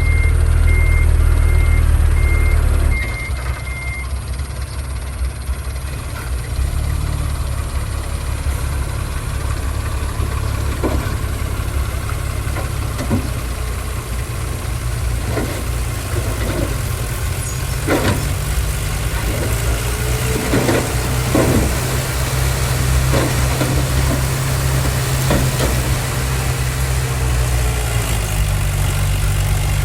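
Diesel engines of a bulldozer and dump trucks running at work, with a low rumble that drops in level about three seconds in. A reversing alarm beeps at an even rate over the first few seconds. A string of sharp clanks and knocks comes through the middle and later part.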